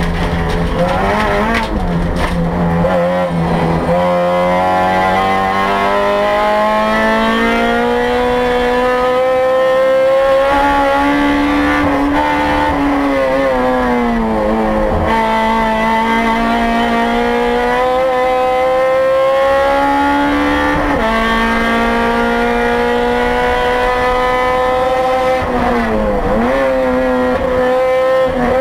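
2008 Honda Civic Si race car's 2.0-litre four-cylinder engine, heard from inside the cabin, pulling hard on track. Its pitch climbs slowly and steadily, with several short dips and recoveries along the way.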